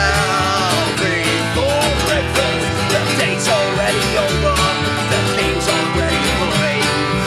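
Acoustic folk-punk band playing: strummed acoustic guitar, mandolin and upright double bass, with a man singing over them, mostly in the first few seconds.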